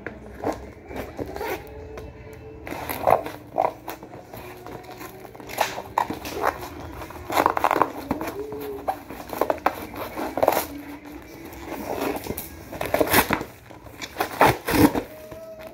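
Cardboard shipping box being handled and torn open by hand: irregular scrapes, rustles and rips of cardboard.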